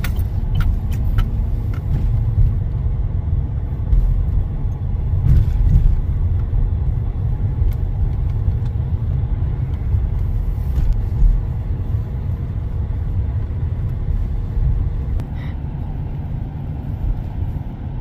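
Steady low rumble of a moving car heard from inside the cabin: engine and tyre noise on the road.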